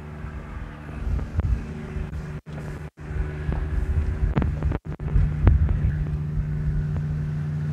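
Steady low hum of a ship's engines and machinery, with a rumble underneath, a few knocks and wind on the microphone. The sound cuts out briefly a few times.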